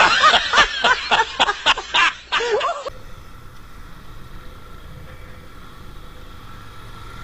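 Rapid, high-pitched bouncing laughter, about four peaks a second, that cuts off abruptly about three seconds in. It gives way to the quieter, steady low noise of a motorcycle riding on the road.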